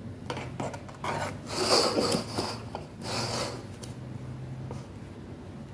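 Metal spoon spreading thick cream in a cake pan, rasping and scraping in a few strokes, the loudest about two seconds in.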